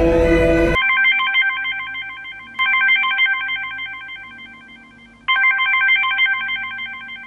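Orchestral string music cuts off about a second in, then a trilling ringing tone sounds three times, each ring starting loud and fading away.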